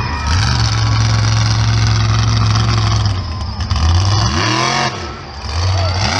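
Monster truck engine running hard at a steady high throttle, then revved up and down several times in quick swells from about four seconds in as the truck launches over a row of crushed cars.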